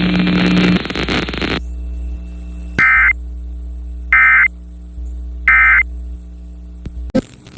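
Emergency Alert System end-of-message code heard over a radio broadcast: three identical short, high data bursts about 1.3 seconds apart over a steady low hum. The bursts follow radio hiss that drops out about a second and a half in, and the audio cuts abruptly near the end.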